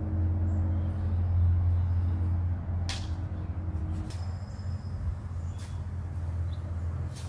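A steady low engine hum, with a sharp click about three seconds in.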